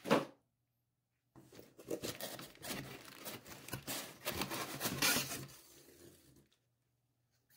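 Cardboard box packaging being pulled and shifted by hand, giving about five seconds of rough scraping, rustling and tearing noise. A short knock comes right at the start.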